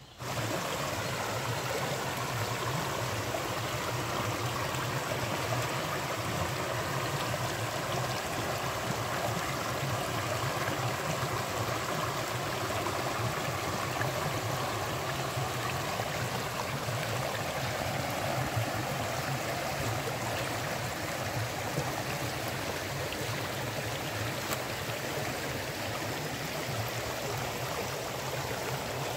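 Running water, a steady flow of noise that cuts in suddenly at the start and holds level throughout.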